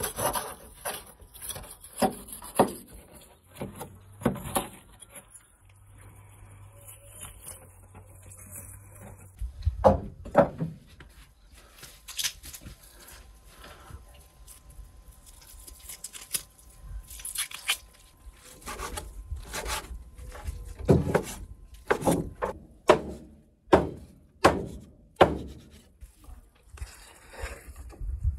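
A large kitchen knife cutting and chopping meat on a wooden cutting board: irregular knocks of the blade on the wood, clustered in runs, with rubbing and scraping between them. Near the end, chopped meat is scraped off one wooden board onto another.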